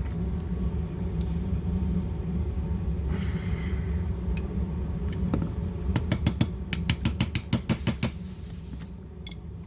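Light hammer tapping a punch against a pin in a pistol frame: a fast run of sharp metallic taps, roughly eight or nine a second, lasting about two seconds past the middle, with a few single clicks and a short scrape earlier, over a steady low hum. The pin is glued in and will not move.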